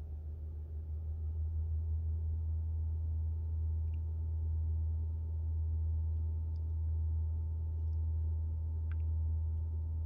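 Heat pump A/C compressor of a 2021 Toyota RAV4 Prime humming with a steady low drone, heard inside the cabin, growing a little louder about a second in and then swelling and easing slowly. This is the 'train horn' humming and buzzing at startup after the car has sat for hours, a known compressor fault that Toyota cured with a software update.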